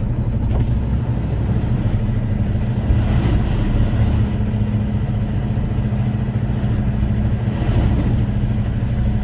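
Truck engine running steadily at a low, even pace, with a constant low drone.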